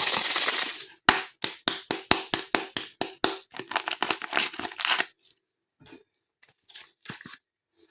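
A brief hiss like water being poured, then a run of sharp clinks and clicks with a faint ring, several a second for about four seconds. The clinks then thin out to a few scattered ones.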